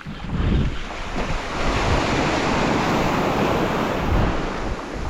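Surf breaking and washing up the beach: a wave's rush swells about a second in and holds for a few seconds. Wind buffets the microphone with a low rumble.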